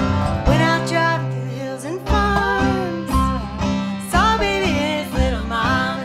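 A band playing live: a voice singing over plucked strings, with a bass line that steps to a new note about once a second.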